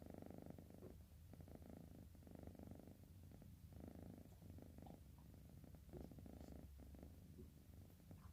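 Sleepy orange house cat snoring: a faint, low rumble that swells and fades every second or so.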